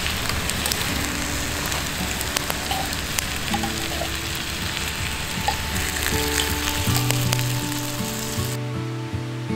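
Food frying in a pan: a steady sizzle with scattered crackles, which stops abruptly near the end. Soft background music plays along, more clearly in the last few seconds.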